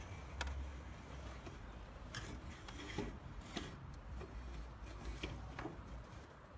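A toy tarantula being handled and moved against a plastic toy container: soft rubbing and scraping with scattered light clicks.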